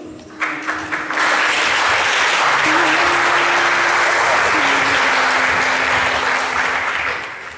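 Audience applauding. It starts about half a second in, builds to full strength about a second in, holds steady, and dies away near the end. Soft held notes of background music run underneath.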